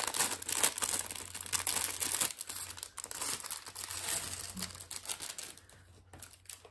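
Thin clear plastic LEGO parts bag crinkling as it is handled and opened, with the small plastic pieces inside rattling as they are shaken out onto the table. The crackle dies away about five and a half seconds in.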